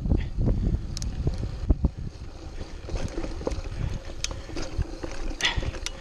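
Mountain bike rolling over a dirt and rock trail: tyres rumbling on the ground, with frequent short clicks and knocks from the bike jolting over bumps, and wind rumbling on the microphone.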